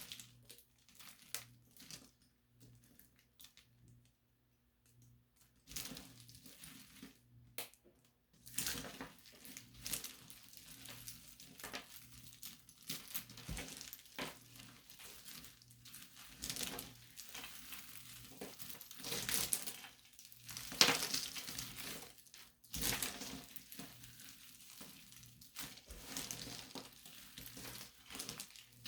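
Close-up crinkling and crunching, like something brittle being crushed or crumpled by hand: only a few scattered crackles for the first several seconds, then dense and continuous from about eight seconds in.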